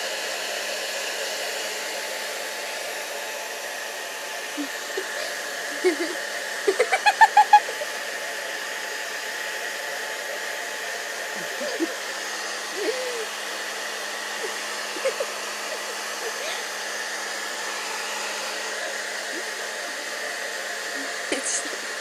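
Hair dryer blowing steadily, with a schnauzer giving a rapid run of about six short yips about seven seconds in, and a few soft whines later.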